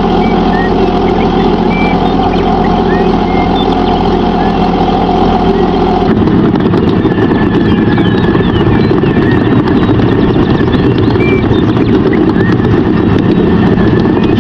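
A vehicle engine running steadily, its tone shifting about six seconds in.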